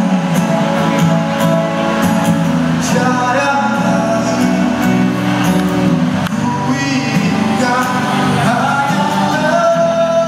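A man singing into a microphone while strumming an acoustic guitar, carried through a stage sound system.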